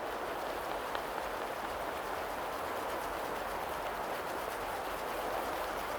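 Wood campfire burning with a steady hiss and a few faint crackles.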